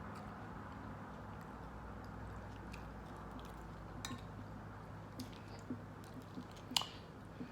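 Close-miked chewing of a crunchy salad, with short sharp crunches and mouth clicks in the second half, the loudest about seven seconds in. A steady low hum runs underneath.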